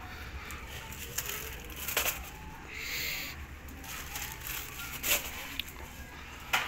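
Thin paper kites on bamboo frames rustling and crinkling as a stack of them is handled and flipped through, with a few sharper paper crackles.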